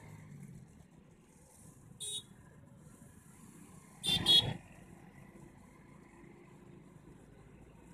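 Vehicle horn honking twice in quick succession about four seconds in, with a shorter, higher toot about two seconds in, over the steady engine and road noise of a vehicle driving along.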